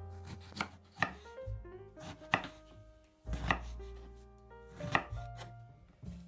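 Kitchen knife cutting eggplant into strips, each stroke a sharp knock, coming irregularly about once a second.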